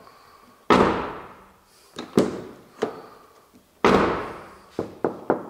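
Chevrolet Camaro car door slammed shut twice, about three seconds apart, each a heavy thud with a long fading tail, with lighter clicks and knocks from the handle and latch between and after. The frameless door glass slaps against its seal as it closes, and the shut is rated a clean sound from a door not yet worn loose.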